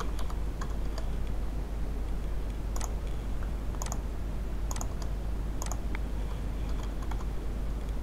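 Computer mouse and keyboard clicking: about half a dozen sharp clicks, the clearest about a second apart in the middle, over a steady low hum.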